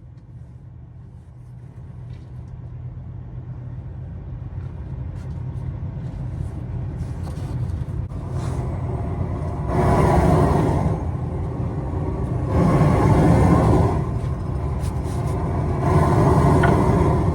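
Engine of heavy equipment running with a low rumble that slowly grows louder, then swells loudly three times, a few seconds apart, as the machine pushes on the trailer.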